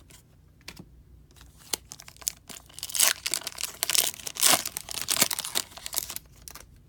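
A hockey card pack wrapper being torn open and crinkled, in irregular crackling bursts that grow loud and dense about halfway through, then die down near the end.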